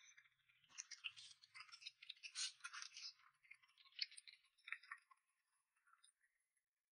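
Faint eating sounds: crackly, clicking chewing of a chicken drumstick eaten by hand, dying away after about five seconds.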